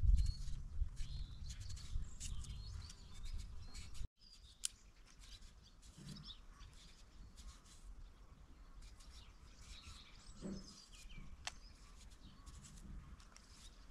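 A small knife scraping and clicking as a potato is peeled by hand, with small birds chirping. A low rumble fills the first four seconds and cuts off suddenly, leaving the quieter scraping and chirps.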